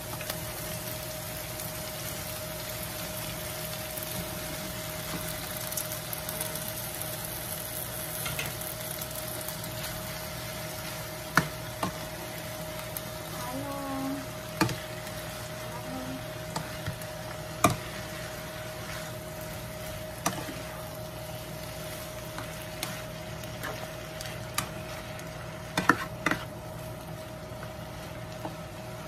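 Ground beef and green beans sizzling in a nonstick frying pan as they are stirred and tossed with a cooking utensil, with sharp clacks of the utensil against the pan now and then.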